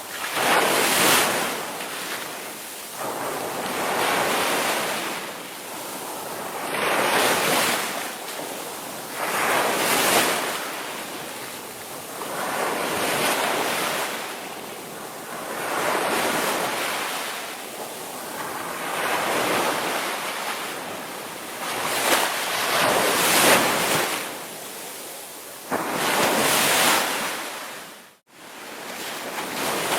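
Ocean surf breaking on the shore, each wave swelling up and washing back about every three seconds. The sound cuts out for a split second near the end.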